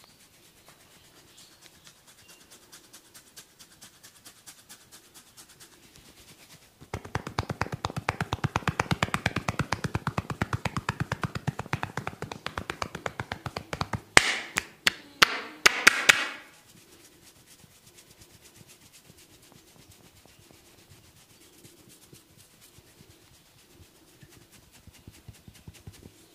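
Head massage: soft rapid scratching, then hands tapping fast on the head for about seven seconds, followed by a handful of loud sharp cracks, before the soft scratching resumes.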